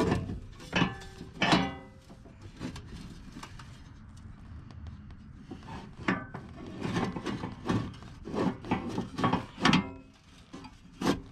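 Irregular knocks, clanks and scraping of metal step parts and bolts being handled and fitted, with a quieter stretch of rubbing in the middle.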